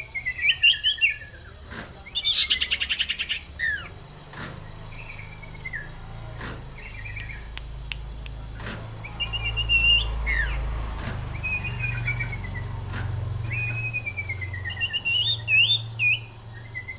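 Common iora singing: a series of clear whistled phrases and falling slurred notes, with a fast rattling chatter about two seconds in. Faint regular clicks come about every two seconds underneath.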